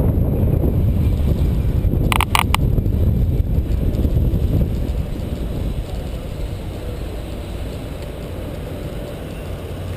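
Wind buffeting the microphone of a bike-mounted camera, with road and traffic rumble, easing off after about five seconds as the bicycle slows in traffic. A few quick sharp clicks about two seconds in.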